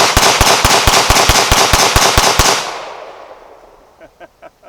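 Glock 17 Gen 4 9mm pistol fired rapidly: a string of about eleven shots at roughly four to five a second, emptying the magazine, with the echo dying away over about a second afterwards. A few faint clicks follow near the end.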